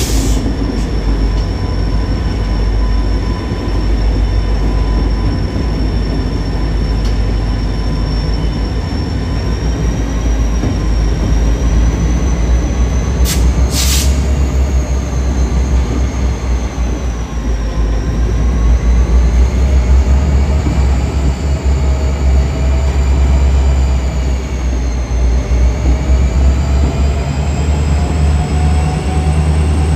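Freight train rolling past with a steady deep rumble, and a thin high squeal of wheels that wavers up and down through the second half. A pair of sharp clicks comes about fourteen seconds in.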